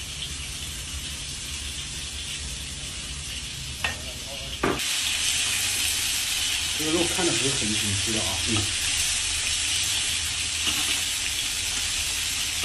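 Pieces of fish fillet frying in hot oil in a steel wok. It is fairly quiet at first, then about five seconds in, just after two sharp knocks, it breaks into a loud, steady sizzle as the fish goes in. The sizzling goes on while a metal spatula turns the fish.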